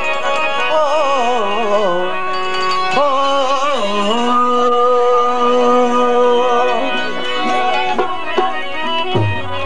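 Sindhi folk music: a melody moving in ornamented, gliding phrases, then settling into long held notes, with a deep drum stroke near the end.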